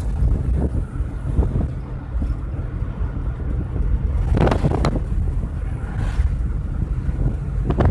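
Steady road and wind rumble inside a moving car, with wind buffeting the microphone. A few sharp crackles or knocks come between four and five seconds in.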